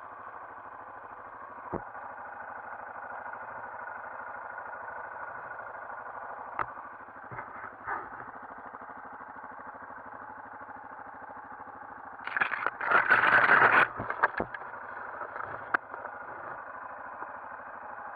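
Yamaha Grizzly 450 ATV's single-cylinder engine running steadily at low speed, heard muffled. There are a few knocks, and about twelve seconds in a loud burst of noise lasts for under two seconds.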